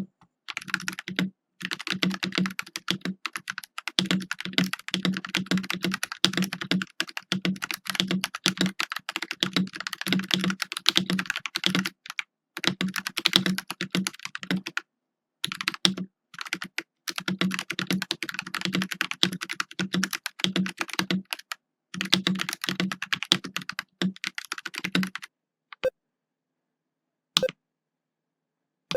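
Typing sound test on an AWS84 mechanical keyboard with lubed Akko CS Ocean Blue tactile switches, a foam-modded plastic case and PBT cherry-profile keycaps: fast steady typing with a few short pauses, stopping about 25 seconds in. A few lone clicks follow near the end.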